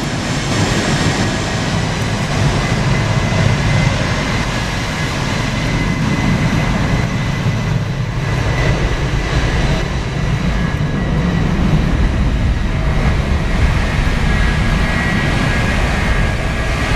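Engines of a heavy twin-engine jet airliner at takeoff thrust: a steady, continuous low rumble with a faint high whine above it.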